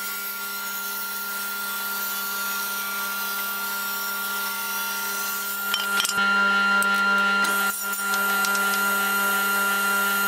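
Carba-Tec table saw running with a steady motor hum while a strip of wood is ripped along the fence. About six seconds in there is a sharp knock, then the blade spins on without cutting.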